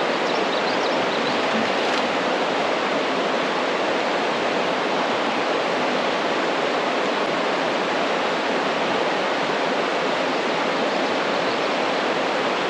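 Steady rush of water falling over a small waterfall, an even, unbroken roar.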